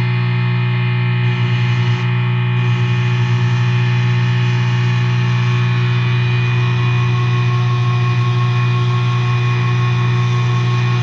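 Loud, steady distorted drone: a heavy low hum under several held higher tones, with no break or change in level.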